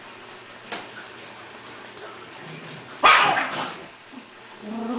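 A dog gives one loud, harsh bark about three seconds in, a play-fighting bark during rough play with other dogs.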